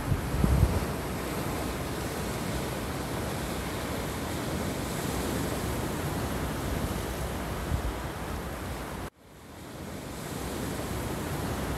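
Sea surf breaking on rocks and washing over a pebble shore, a steady rush of rough water, with wind buffeting the microphone in the first second. About nine seconds in the sound cuts out abruptly, then fades back in.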